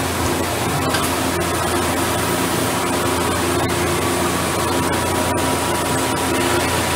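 Hwacheon T2-2T-YSMC CNC lathe running behind its closed door: a steady mechanical hum and hiss.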